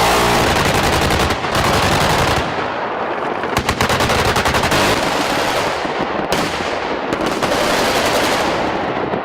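Automatic weapons fire at a live-fire exercise: rapid strings of machine-gun shots over a continuous rumble of fire, with the fastest run of shots in the middle.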